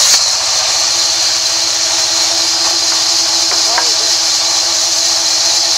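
Large sawmill band saw running steadily through a rain tree log, a continuous high hiss and whine of the blade in the wood. A few brief squeaks come a little past the middle.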